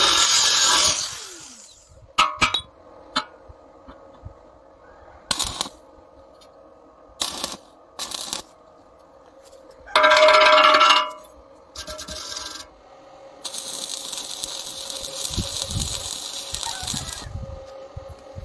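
Metal clinking and tapping during rebar work: scattered sharp clicks, a loud burst of about a second roughly ten seconds in, and a stretch of hissing noise a few seconds before the end.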